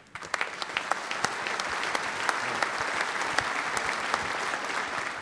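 Audience applauding, a dense patter of many hands clapping that builds up within the first half second and then holds steady.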